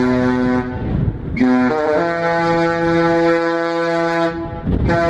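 Discovery Princess cruise ship's horn playing a tune: several long notes at different pitches, with two short breaks. Wind rumbles on the microphone in the breaks.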